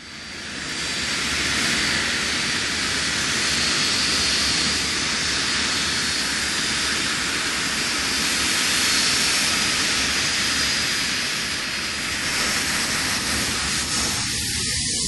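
Aircraft taking off: loud, steady engine noise with a thin high whine on top, fading in over the first second.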